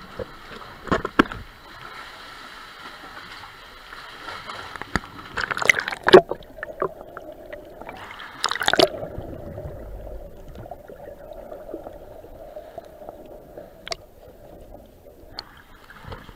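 Choppy seawater sloshing and splashing at an action camera held at the waterline. There are loud splashes about six seconds in and again around nine seconds as the camera dips under. From then on the sound is muffled and dull, heard underwater through the camera housing, until the camera surfaces near the end.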